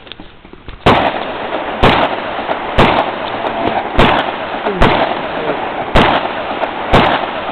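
.30 calibre gun firing single shots at a slow, even pace, about one a second, seven shots starting about a second in, each followed by a long echo.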